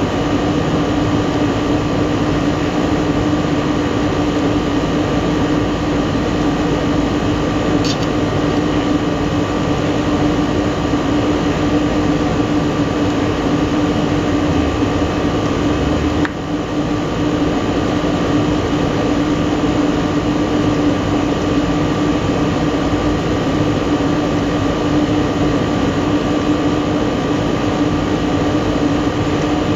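Steady, loud drone of running rooftop machinery, typical of HVAC units, with a strong low hum. A faint click comes about eight seconds in.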